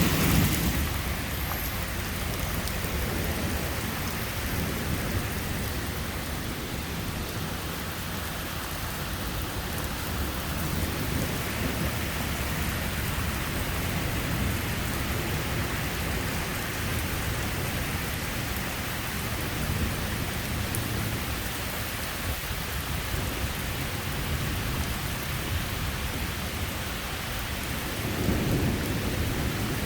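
Heavy rain pouring steadily during a thunderstorm, with a low rumble of thunder right at the start and again near the end.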